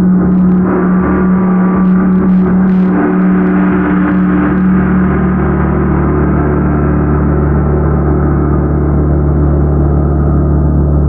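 Tam-tam gong played continuously as a sustained, swelling wash of many overlapping tones, with a strong low hum. A few light strokes in the first three seconds add brief bright shimmer.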